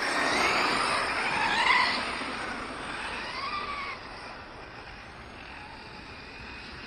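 Electric radio-controlled cars running: motor whine rising and falling with the throttle over a hiss of tyres and wind, loudest in the first two seconds and dropping off after about four seconds.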